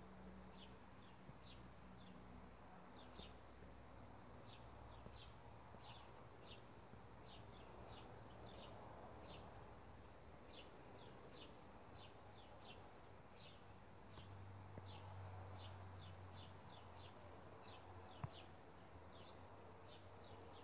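Faint outdoor ambience: a long run of short, high chirps from a small animal, about two a second and unevenly spaced, over a low background hum. A single light tick about eighteen seconds in.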